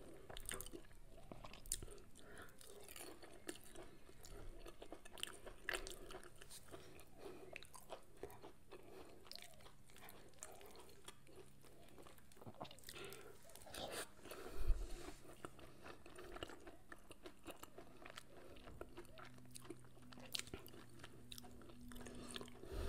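A person chewing and eating a meal of fish, rice and grilled vegetables by hand: soft, irregular chewing with small clicks and rustles of food being picked up and dipped. One louder low thump about fifteen seconds in.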